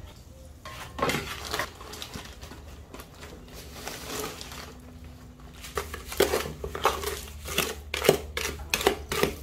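Plastic liner bag of dry stucco patch mix rustling and crinkling as hands reach into it, with irregular scraping and knocking against a plastic bucket, busier in the last few seconds, as the mix is scooped in.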